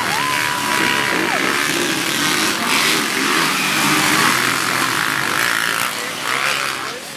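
A pack of motocross dirt bikes revving hard through a turn and accelerating away, their engines blending into a loud, steady buzz. A high held tone sounds for about a second at the start, and the engine noise fades near the end as the bikes move off.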